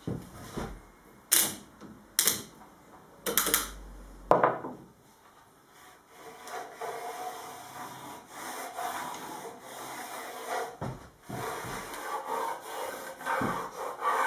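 A few sharp clacks of bar clamps being handled on a glued wooden paddle blank, then the uneven rubbing scrape of the paddle blank being slid by hand along a metal machine table and fence.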